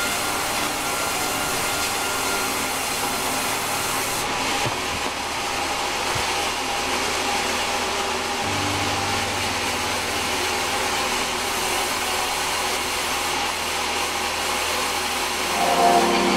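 Large vertical band saw running in a timber mill, its blade cutting through a plank with a steady sawing hiss over the machine's hum. It grows louder about a second before the end, with a deeper tone coming in.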